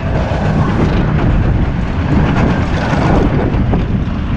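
Suspended looping roller coaster train rumbling and rattling along its steel track at speed, mixed with the rush of wind over an onboard microphone.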